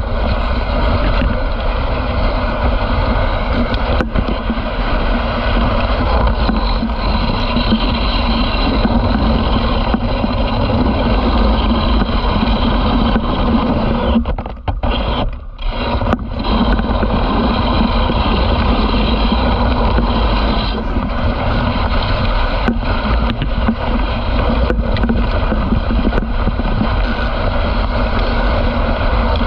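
Dog sled travelling along a packed snow trail: a steady rushing noise of the runners sliding over the snow, mixed with wind on the microphone. It drops out briefly about halfway through, then carries on.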